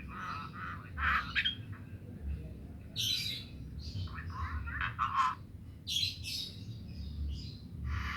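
Javan myna (jalak kebo) giving harsh, squawking chatter in repeated short bursts, some higher and scratchier than others, over a faint steady low hum.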